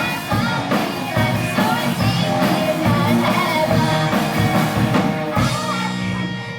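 A student rock band playing live, with drum kit and electric guitar, and singing.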